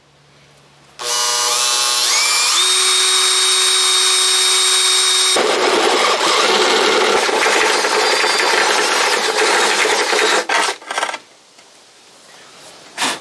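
Electric drill boring a hole for the new ignition switch. It starts about a second in with a whine that rises in pitch and then holds steady, turns to a rougher, noisier grinding about halfway through, and stops with a few short bursts near the end.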